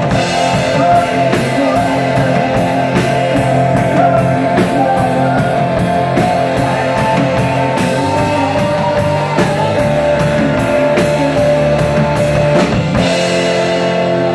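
Live rock band playing: drum kit, electric bass and keyboard with a woman singing. About 13 seconds in, the drums drop out, leaving sustained keyboard chords.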